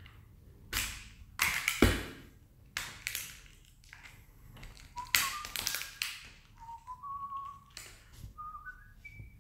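Stiff plastic packaging of a microSD card crackling and snapping as it is peeled open, a series of sharp clicks with the loudest just before two seconds in. From about halfway, a man whistles a few short notes that step upward in pitch.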